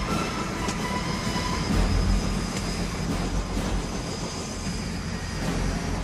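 Military helicopter's turbine engine and rotors running, a steady low rumble.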